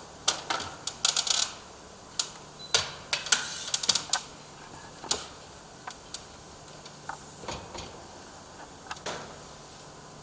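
Irregular sharp clicks and knocks as a security door's frame header is handled and fitted into place at the top of the opening, densest in the first four seconds and then sparser.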